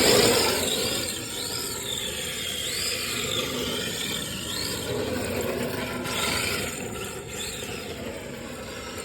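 Radio-controlled drift car being driven: its motor whines, the pitch swooping up and down several times as the throttle is worked, over a hiss of the tyres sliding. Loudest right at the start, with another surge about six seconds in.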